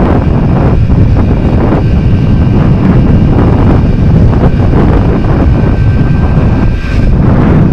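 Wind buffeting the microphone of a camera on a moving Yamaha DT100 two-stroke trail bike, a loud steady rumble, with the bike's engine running underneath.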